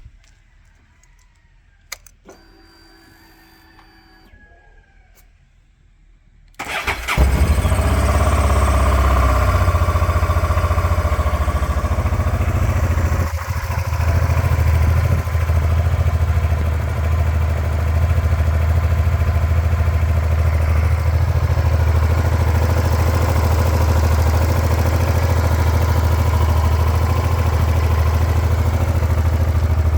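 Honda Transalp 700's V-twin engine on its stock exhaust, started about six and a half seconds in: it cranks briefly, catches and then idles steadily and evenly. Before the start it is quiet, with a faint distant call.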